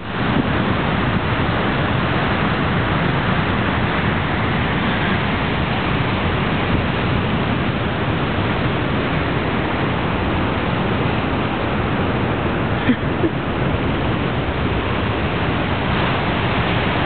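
Rough sea surf breaking and washing over basalt rocks: a loud, steady rushing noise, with one brief bump about three-quarters of the way through.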